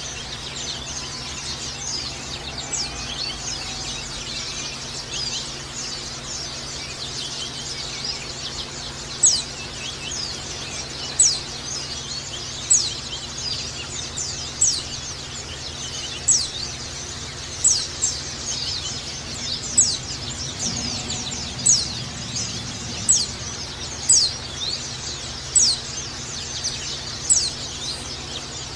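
White-eye (pleci) song: a continuous high twittering, and from about nine seconds in a loud, sharp downward-sliding call repeated about every one and a half seconds, the 'ngecal' calling. A faint steady low hum runs underneath.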